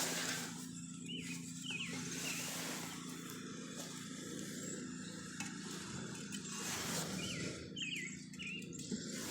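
Outdoor background ambience: a steady low hum under a light haze of noise, with a small bird chirping briefly twice, about a second and a half in and again near the end.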